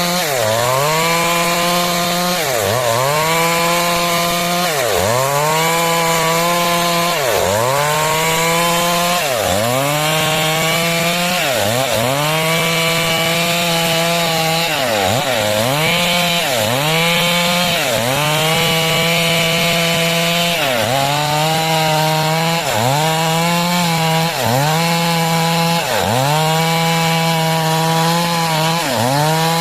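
Stihl MS 382 two-stroke chainsaw at high revs, ripping planks from a log. Its pitch dips sharply and climbs back about every two seconds as the saw bogs under the cut and recovers, the dips coming a little faster near the end.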